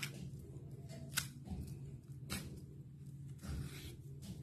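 Kitchen knife peeling the skin off a raw green banana: a few faint, short clicks and scrapes over a steady low hum.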